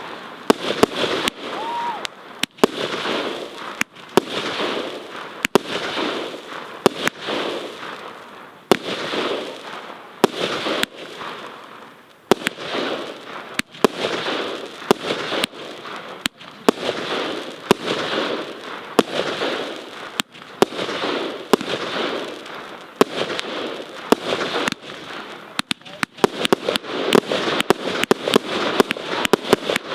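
Tropic 'Ammo Box' 54-shot 25 mm firework battery firing: a sharp shot about every second or so, with a steady hiss between from the long-burning strobe (blinker) star bouquets. Near the end the shots come faster, in quick clusters.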